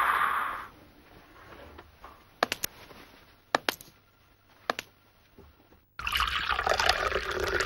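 A steady hiss fades out within the first second. Then a few sharp clicks and knocks of a stainless steel vacuum flask and a mug being handled, and for the last second and a half, liquid pouring from the flask into the mug.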